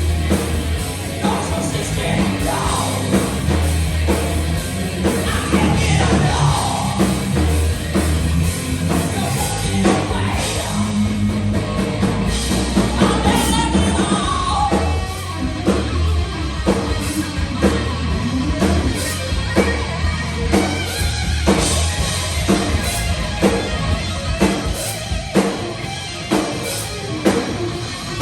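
Live heavy metal band playing loud: drum kit, heavy low end and shouted, yelled vocals, with a steady drum beat through the second half.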